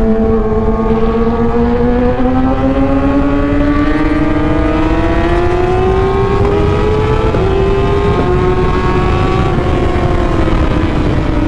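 Kawasaki ZX-6R 636's inline-four engine running through an Arrow exhaust, its revs climbing steadily for about seven seconds and then falling away near the end. A heavy low rumble sits underneath.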